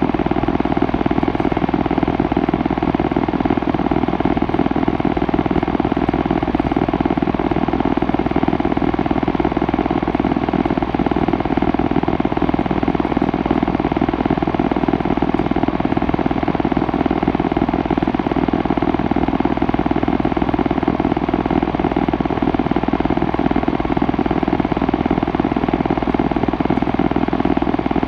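Compressor running with a steady, unchanging drone.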